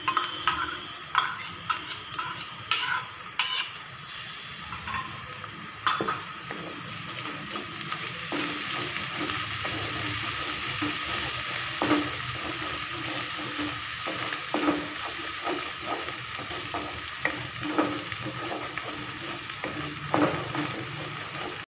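Grated onion and ginger-garlic paste sizzling in hot oil in a metal kadhai while a wooden spatula stirs it. Sharp knocks of the spatula on the pan come in the first few seconds. After that there is a steady sizzle, louder from about eight seconds in, with regular scraping strokes of the spatula.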